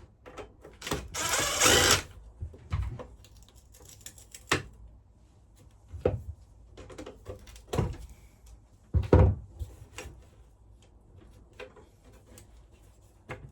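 Metal furnace casing being dismantled with tools: a short burst of tool noise about a second in, then a scattering of separate knocks and clicks as screws and metal parts are handled.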